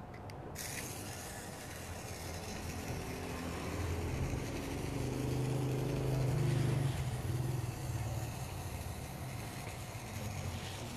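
Small electric motor of a line-following toy excavator running as it drives along a drawn line: a steady hum that swells about halfway through and then eases off.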